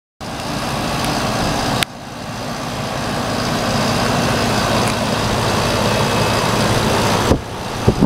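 Outdoor central air-conditioner condensing unit running: a steady whoosh from the top-mounted condenser fan over a low, steady hum. A click about two seconds in briefly drops the level, which then builds back up.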